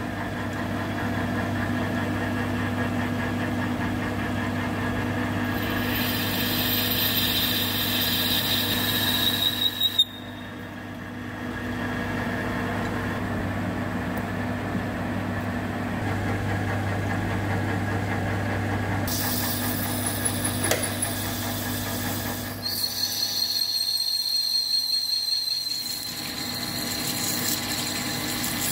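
Metal lathe running while machining a stainless steel part, with a steady gear hum and a high cutting whine in two stretches. The sound changes abruptly a few times.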